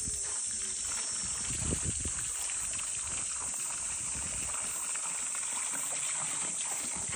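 Water trickling from a pipe spout into a stone basin, a steady splashing hiss, with a couple of soft thumps about two seconds in.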